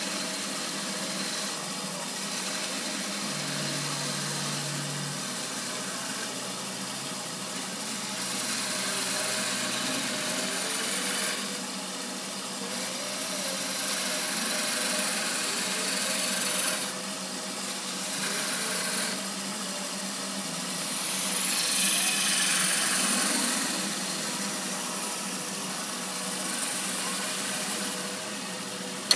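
Wood lathe running while a turning tool cuts long shavings from the outside of a spinning thin-walled wooden goblet. The cutting hiss comes and goes in several passes and is loudest about three-quarters of the way through.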